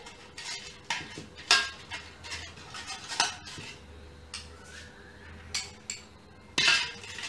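Metal spoon scraping and clinking against the bottom of an aluminium tray as oil is spread over it, in a series of irregular strokes.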